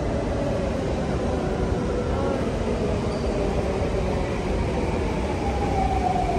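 Steady rumble of a moving vehicle, with a whine that slides down in pitch near the end.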